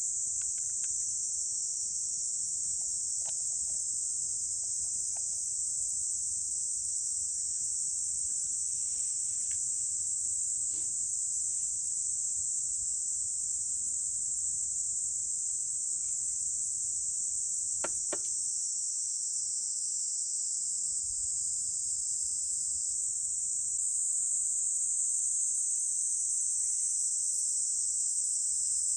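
A steady, high-pitched chorus of insects, one continuous shrill buzz, with a few faint clicks over it.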